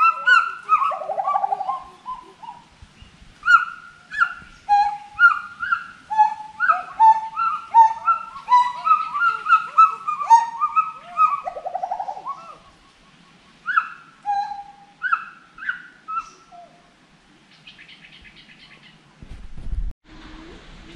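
Gibbons singing: a long run of loud whooping notes that swoop up and down, about two a second, with some shorter higher calls mixed in, thinning out and stopping a few seconds before the end. A brief low rumble comes near the end.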